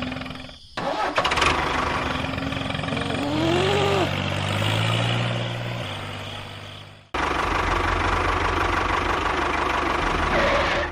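Machine engine or motor running with a steady churning mechanical noise. It cuts out abruptly twice, under a second in and about seven seconds in, and picks up again straight away each time.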